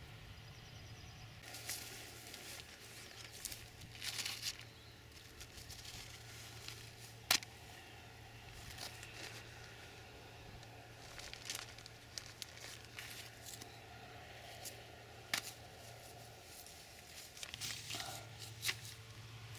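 Rustling through long grass and nettles with scattered sharp clicks and crackles, from movement and handling while following a pheasant on foot.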